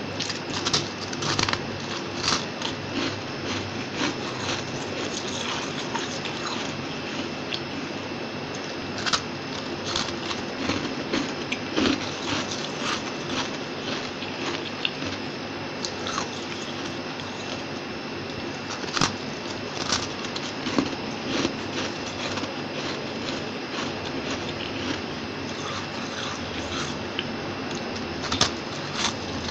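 Close-miked biting and chewing of a disk of fluffy freezer frost: irregular crisp crunches and crackles as bites break off and are chewed, over a faint steady high-pitched hum.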